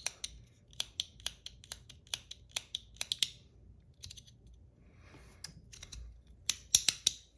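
Sharp clicks of a PEI and aluminium Battle Master 1.1 clicker fidget being worked by hand, in irregular runs of several clicks, with a quicker, louder flurry near the end.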